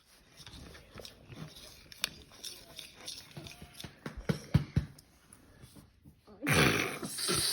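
Clicks and knocks of bowls, spoons and slime ingredients being handled, then about six and a half seconds in a loud rushing hiss lasting about a second.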